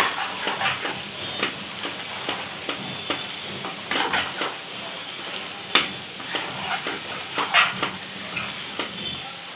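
Metal spoon stirring and scraping chicken curry in a metal kadai over a steady sizzle, with clinks against the pan and one sharper knock a little past the middle. Freshly added yogurt is being stirred in quickly so it does not curdle.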